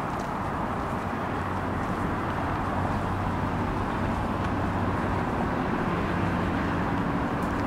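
City street traffic going by: a steady wash of car engines and tyres with a low hum, growing slightly louder toward the end.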